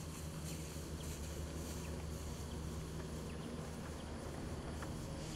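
Steady outdoor background noise: a low hum under a high, insect-like hiss, with a few faint light ticks.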